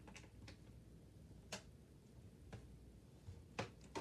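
Faint, scattered light clicks and taps, about six in four seconds, from a doll's plastic-and-cardboard packaging being handled while a retaining strap is worked loose.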